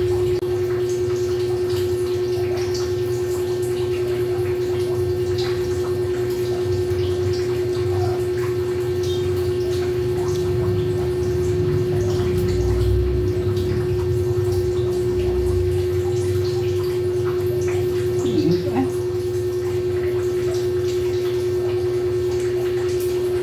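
Steady electric hum of a small clip-on electric fan running, with faint scattered clicks and handling noises from eating out of a bowl. A brief wavering sound about three quarters of the way through.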